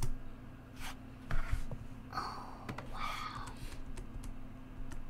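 Scattered keystrokes and clicks on a computer keyboard, a few separate taps with a soft rustling hiss between about two and three and a half seconds in.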